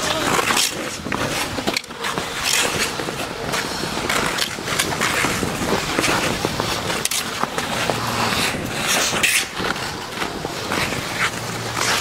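Ice skate blades scraping and hissing on rink ice as skaters glide and push off, in irregular strokes about a second apart.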